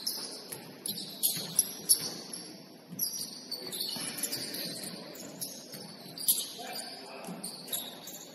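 Basketball game play: sneakers squeaking on the court floor and the ball bouncing with sharp thuds, three in quick succession a little over a second in and another about six seconds in.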